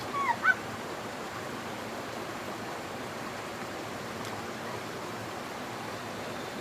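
Steady rush of running stream water. About half a second in, a brief high-pitched call of two or three quick, bending notes sounds over it.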